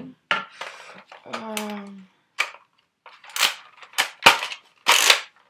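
Hard plastic clicks and clacks from a Nerf Zombie Strike Slingfire blaster and its dart clip being worked by hand, with two short scraping rasps in the second half. A few muttered words come in the first two seconds.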